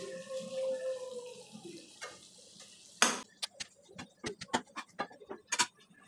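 A pan of fish curry on a gas stove, with a soft hiss at first. About three seconds in comes a loud sharp clack, followed by a quick irregular run of about a dozen sharp clicks and pops.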